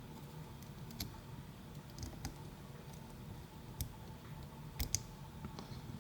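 Faint scattered metallic clicks and taps as a key is worked into a disassembled Abloy Classic disc-detainer lock. The sharpest pair of clicks comes about five seconds in.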